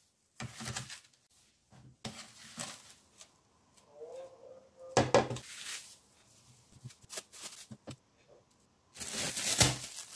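Plastic sheets crinkling and rustling as frozen chapli kebab patties are peeled apart, with knocks as the hard patties are set down on an aluminium tray. The loudest knock comes about five seconds in, and the rustling thickens near the end.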